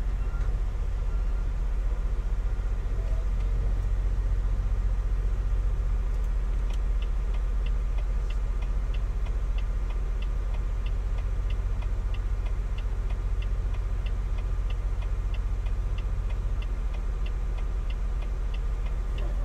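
Volvo VNL860 semi-truck's diesel engine idling steadily with a low rumble, heard from inside the cab. About seven seconds in, the indicator flasher starts ticking at a steady few clicks a second.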